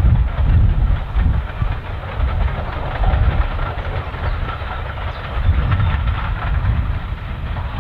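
Double-headed steam train running past, an ex-SR M7 tank engine leading an ex-SR Schools class locomotive and coaches: a steady low rumble with an uneven pulse and the rattle of wheels on the rails.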